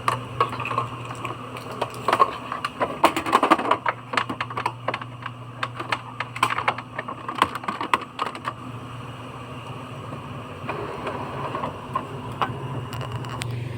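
Clusters of sharp clicks and taps from handling the plastic parts of an Epson L360 printer, over a steady low hum; the clicking stops about eight and a half seconds in.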